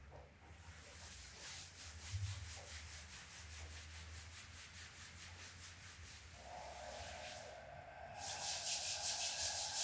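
Hands rubbing briskly over a shirt on the lower back, an even swishing of about five strokes a second; it stops briefly near the end and starts again louder as the palms rub against each other. The rubbing massages the kidney points to warm them.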